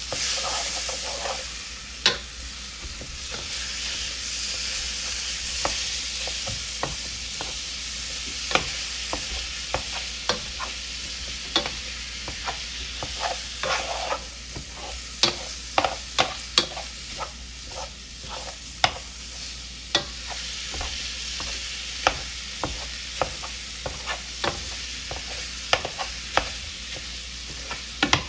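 Ground beef sizzling as it browns in a nonstick skillet, with a spatula scraping and tapping against the pan many times as the meat is broken up and stirred.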